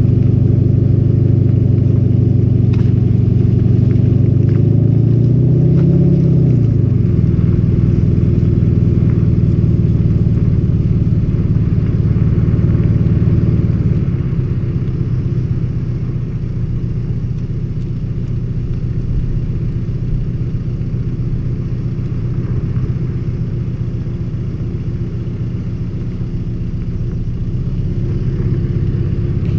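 VW Golf 7 GTD's 2.0 TDI four-cylinder diesel engine, with the Sport and Sound package, pulling while driving. It revs up for a couple of seconds, then drops sharply as the revs fall, and settles into a steady cruise that grows a little quieter partway through.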